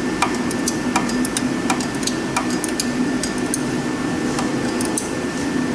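Irregular sharp metallic clicks, about two or three a second, from a wrench working the mounting bolts of a turbocharger wastegate actuator as they are tightened. A steady low hum runs underneath.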